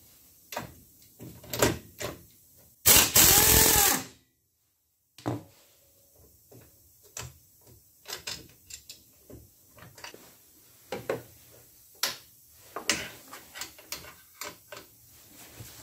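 Impact wrench run in one loud burst of about a second, its motor whine dipping and rising, backing out the winch fairlead bolts. Then scattered light clicks and metal knocks as the bolts and fairlead are handled.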